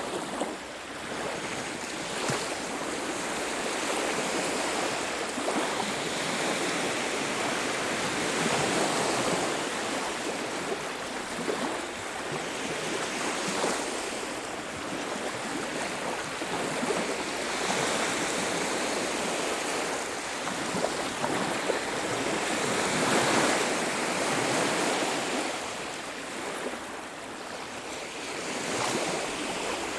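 Sea waves breaking and washing on a beach, a continuous surf wash that swells and eases every few seconds.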